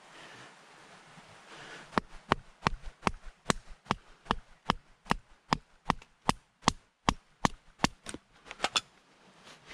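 A blade chopping into wood in quick, evenly paced strikes, about two and a half a second, starting about two seconds in and stopping shortly before the end: hand-cutting to shape a piece of timber.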